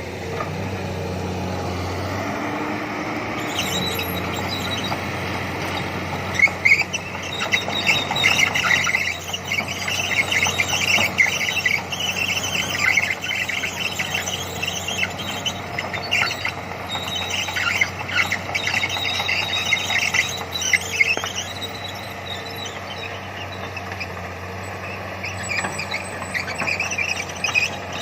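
Komatsu PC200 excavator running steadily as it works. From several seconds in, loud high-pitched squealing and screeching from the machine comes and goes, fading out for a few seconds and returning near the end.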